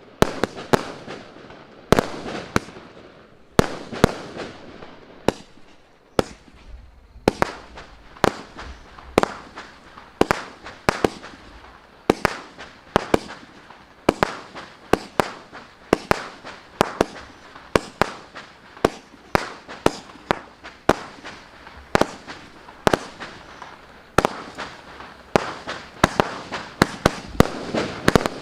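A 300-shot consumer firework cake (Armageddon MC147) firing shot after shot: sharp bangs about two a second, each trailed by crackling, with a short lull about six seconds in.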